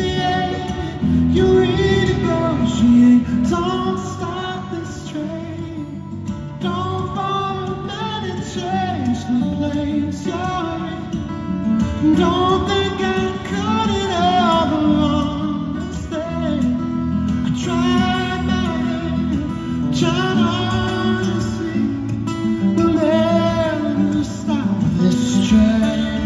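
A man singing to his own acoustic guitar, the guitar picked and strummed under a flowing vocal melody, in a live arena performance.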